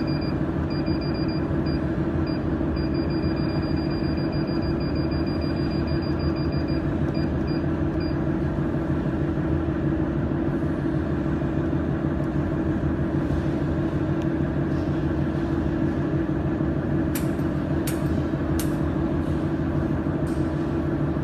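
Steady mechanical hum of a mold-repair laser welding machine running. A high-pitched tone keeps switching on and off for the first eight seconds or so, and a few sharp clicks come near the end.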